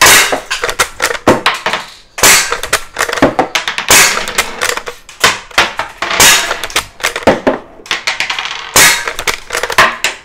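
Umarex Legends Cowboy lever-action CO2 BB rifle fired rapidly: five sharp shots about two seconds apart. Each shot is followed by a quick run of metallic clicks as the lever is worked, ejecting the cartridge and chambering the next.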